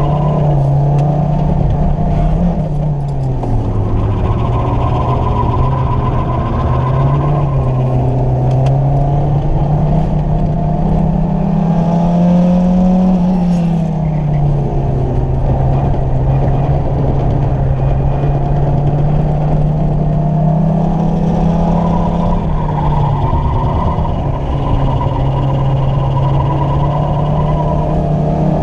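Renault Twingo engine heard from inside the cabin at track pace, its note climbing under acceleration and dropping back several times, about three seconds in, around thirteen seconds, and again near twenty-three seconds, with road and tyre noise underneath.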